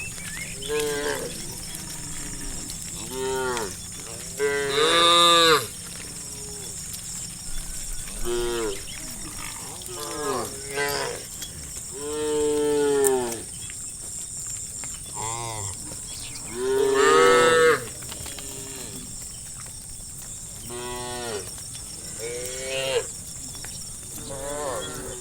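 Several cattle mooing over and over, in overlapping calls of different pitches and lengths. The longest and loudest come about 5 seconds in, around 12 seconds, and around 17 seconds. A steady faint high hiss runs underneath.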